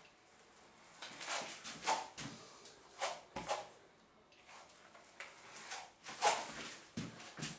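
A 10-inch texturing comb tool is drawn through wet artex texture on a wall. It makes a series of short scraping swishes, each stroke a separate sweep.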